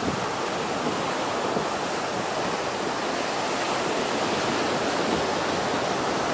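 Ocean surf washing up a flat sandy beach: a steady, even wash of small breaking waves.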